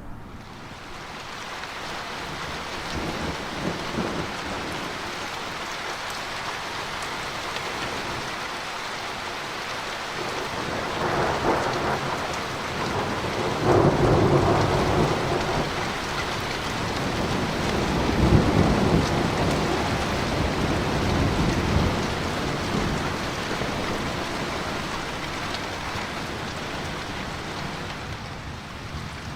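Steady rain with rolling thunder overhead: the rumble builds about a third of the way in, peaks loudest twice, about halfway through and a few seconds later, then fades back under the rain.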